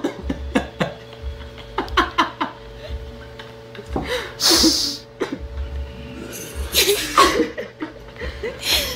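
Young girl laughing and giggling in short bursts, with a breathy hiss about halfway through.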